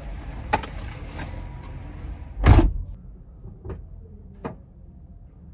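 A car door shuts with a heavy thud about two and a half seconds in, heard from inside the cabin, and the outside hiss drops away behind it. A few light clicks come before and after.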